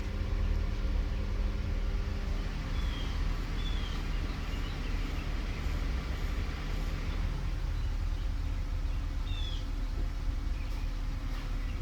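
1999 Acura CL's engine idling steadily, a low continuous hum, with a few short high chirps over it.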